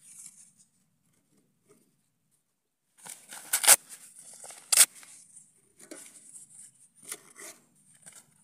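Cardboard being torn apart by hand for bee-smoker fuel: a few seconds in, two sharp loud rips about a second apart, then bouts of tearing and crinkling.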